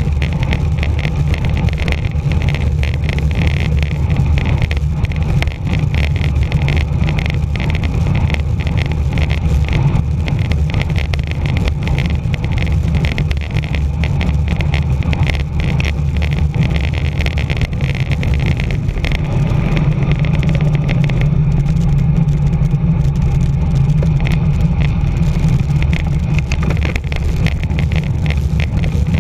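Wind rushing over the microphone of a camera on a bicycle descending at speed: a loud, steady low rumble with a flickering hiss on top. About two-thirds of the way in, the hiss fades and the low rumble grows stronger.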